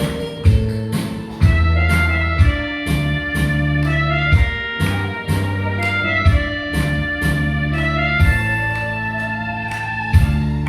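Instrumental music, the accompaniment of an old song: a strong beat about once a second under a bass line and held melody notes.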